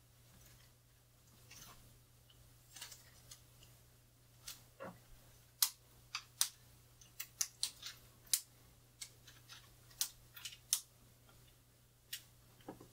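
Aluminium camera tripod being handled: an irregular scattering of sharp clicks and taps from its leg locks and fittings, most of them in the middle stretch.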